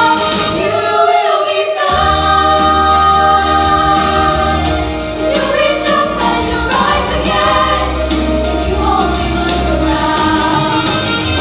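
Women's vocal ensemble singing together in harmony through microphones, with a deep bass sound coming in about two seconds in.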